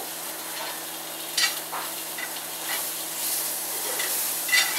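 Onion strands frying in hot grease in a skillet, a steady sizzle, as they are cooked until a little crispy. A spoon stirring them clinks sharply against the pan a few times, once about a second and a half in and again near the end.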